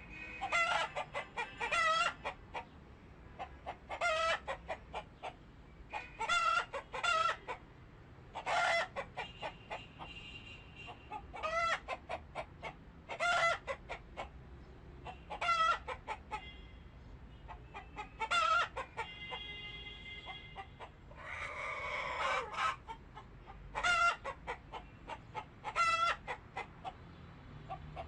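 Chickens calling: short rapid cackling calls repeated about every two seconds, with a longer, steadier call about two-thirds of the way through.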